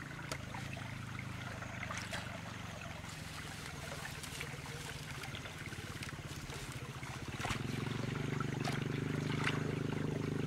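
Steady hum of a small engine running, growing louder about three-quarters of the way through, over a faint trickle of water. Scattered knocks and rustles come from digging at a ditch bank and pulling up grass.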